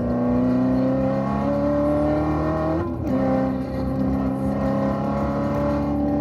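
Supercharged 6.2-litre V8 of a bolt-on-modified C7 Corvette Z06 accelerating hard, its pitch climbing in third gear. About three seconds in comes a quick upshift to fourth, with the pitch dropping suddenly, and the engine pulls on with a slowly rising pitch.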